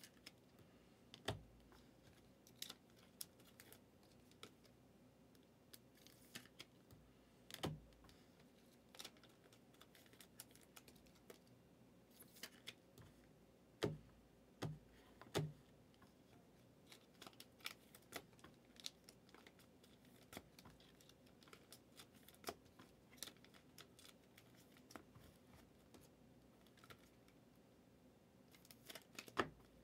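Trading cards being flipped through and handled: scattered small clicks and taps, with a few louder taps, three of them close together about halfway through.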